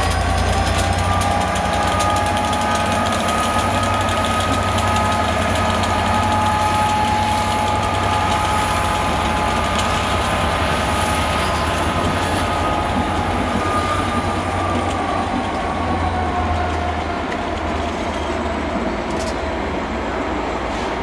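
Class 67 diesel-electric locomotive and its coaches pulling out under power: a steady low engine drone with a two-tone whine that rises at the start and eases slightly near the end as the train draws away, and the coaches rolling over the rails.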